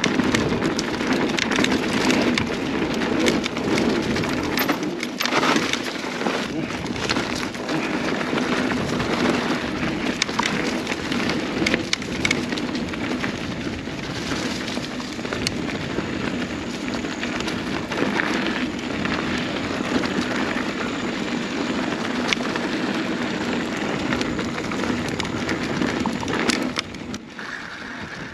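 Mountain bike tyres rolling over dirt and fallen leaves on singletrack, with the bike's rattle and scattered sharp ticks from bumps in the trail. The noise is steady and drops quieter near the end.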